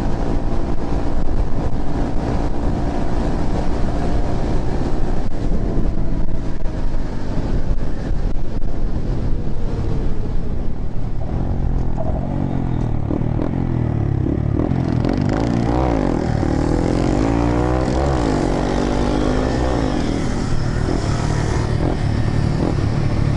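Honda Grom's small single-cylinder engine running while riding. Over the first half it holds a fairly steady note under a noisy haze; from about halfway its pitch rises and falls again and again as the throttle is worked.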